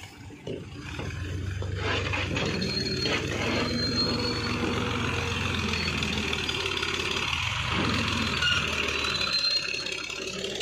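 Fiat 480 tractor's diesel engine running steadily as the tractor is driven.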